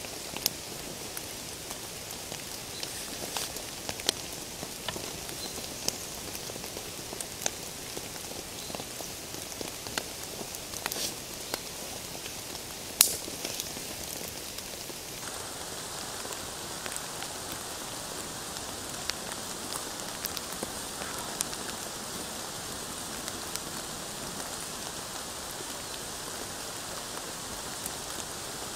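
Steady rain falling, with scattered sharp crackles and pops from a small stick campfire, one louder snap about midway. The hiss of the rain changes tone about halfway through.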